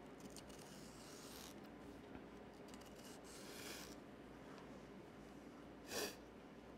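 Kitchen knife cutting a red bell pepper on a wooden cutting board: faint slicing strokes, then one sharper knock of the blade on the board near the end.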